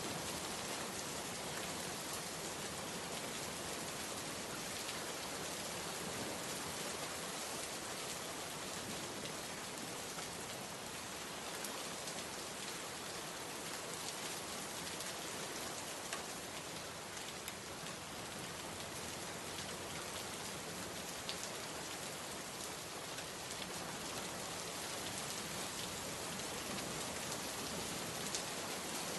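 Steady rain falling, an even hiss with scattered drop ticks on a surface and no change in intensity.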